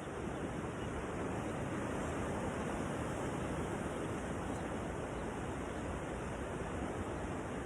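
Steady rush of ocean surf washing up the beach.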